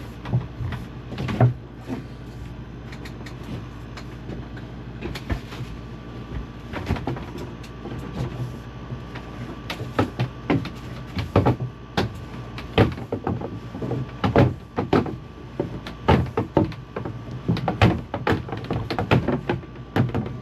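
Irregular knocks, clunks and scraping from 1/2-inch PEX pipe being pushed and pulled through drilled holes in wooden wall studs, coming thicker in the second half, over a steady low hum.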